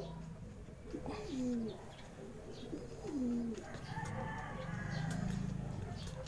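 Racing pigeons cooing: several low coos that each slide down in pitch, about a second in and again around three seconds.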